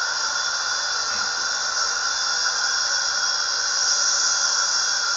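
Steady hiss of recording noise with a faint high whine running through it, without knocks or other events.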